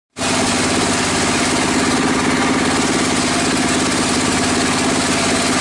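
Engine-driven circular saw bench running steadily while a timber beam is ripped lengthwise into planks. The sound cuts in abruptly from silence just after the start and holds an even, loud level.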